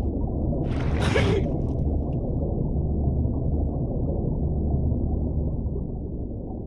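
Muffled, low rumbling of floodwater heard from inside a car as it goes under, with a brief louder rush about a second in and the rumble fading near the end.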